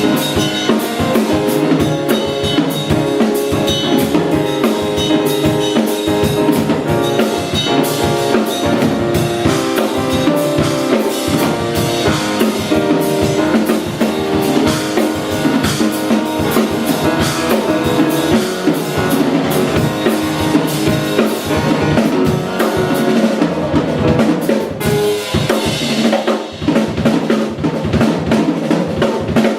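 Instrumental concert music: a drum kit plays a busy, driving beat of snare, bass drum and rimshots under held melodic notes from pitched instruments.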